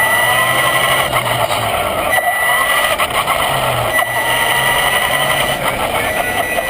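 Traxxas Slash RC truck's electric motor and drivetrain whining as it drives, the pitch rising each time it speeds up, several times over, heard from a camera mounted on the truck.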